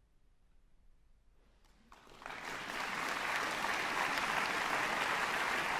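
About two seconds of near hush, then an audience breaks into applause, quickly building to a full, steady clapping.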